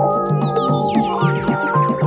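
Background music with a steady beat, with a run of falling notes in the upper range about a second in.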